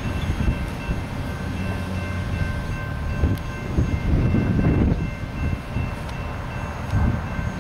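Intermodal freight train passing: an uneven low rumble of cars on the rails, with faint steady high-pitched tones held over it.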